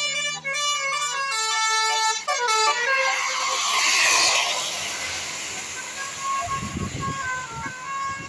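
A 'telolet' multi-tone air horn plays a quick melody of stepping notes. About three seconds in, the rush of the passing vehicle swells up. Fainter horn notes carry on as it moves away.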